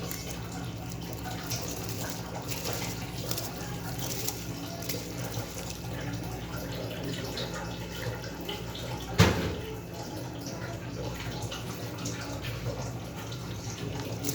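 Steady sizzling and bubbling from food cooking in a pot, with fine crackles throughout and one sharp knock about nine seconds in.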